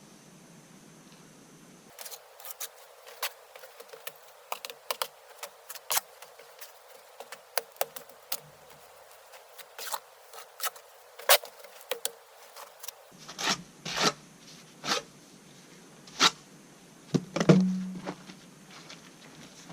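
A run of sharp, irregular clicks and taps, several a second at times, the loudest about eleven seconds in and near the end, with a brief low hum near the end.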